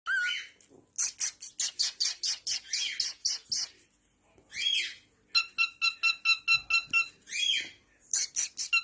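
Pet parrot calling: a fast run of short, high chirps, about six or seven a second, and a few single squawks that sweep up and down in pitch. In the second half come quick, evenly repeated beeps at a steady pitch, like a phone ringtone.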